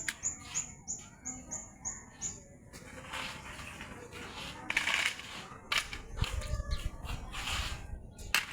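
Strong gusting wind rushing in surges, buffeting the microphone with deep rumbles a little after halfway. Over the first couple of seconds a run of short, high chirps repeats about three times a second.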